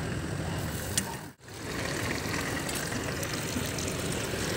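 Egg omelettes sizzling in small pans on a street-stall stove, over a steady low engine-like rumble. There is a click about a second in, and the sound drops out briefly just after it.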